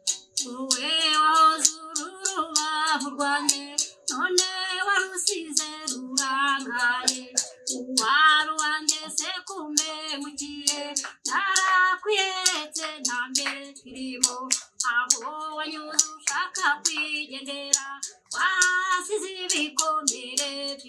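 A woman singing a song, over a quick, steady beat of sharp taps.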